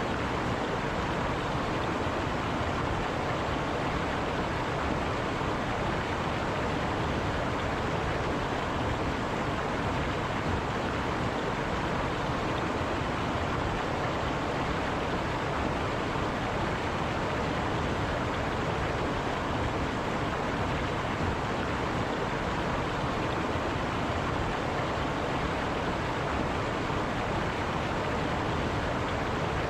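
River water flowing and rushing over rocks, a steady, unbroken roar of water.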